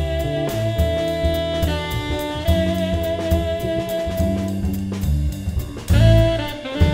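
Jazz quartet playing: a tenor saxophone holds long notes over electric bass, electric guitar and a drum kit keeping time with regular cymbal and drum strokes.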